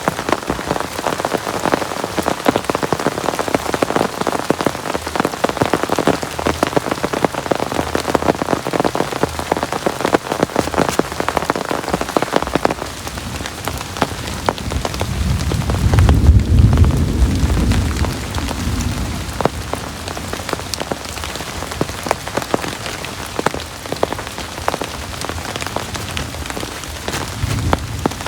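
Heavy rain falling steadily, dense with drop hits. A low rumble of thunder swells about sixteen seconds in and fades over a couple of seconds.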